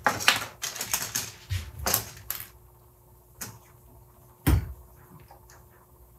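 Hard 3D-printed plastic parts clicking and clattering as they are handled and fitted together on a workbench. A quick run of clicks fills the first couple of seconds, then a single click, then a louder knock about four and a half seconds in.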